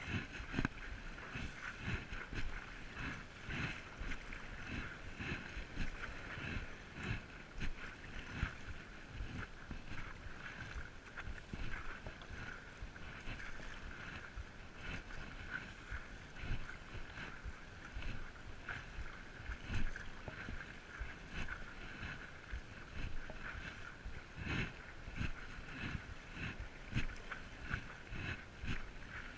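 Stand-up paddleboarding on the sea: water lapping and splashing around the board and paddle, with irregular low thumps and wind buffeting the microphone.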